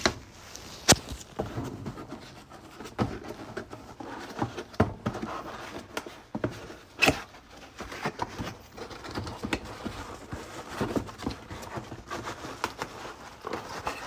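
A cardboard box being handled and opened: irregular scraping and rustling of cardboard with scattered sharp knocks and clicks, the sharpest about a second in and again about seven seconds in.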